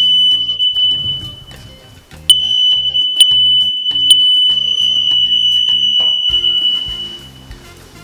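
A hardwired 120-volt smoke alarm's test tone, sounded by pressing its test button: one high-pitched steady tone, on for about a second, then after a short break held for about five seconds before it fades, with a few clicks along the way. Passing the test shows the newly wired alarm works. Background music plays underneath.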